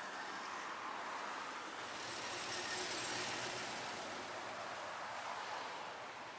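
Heavy dump truck driving past: engine and tyre noise swells to its loudest about halfway through, then fades.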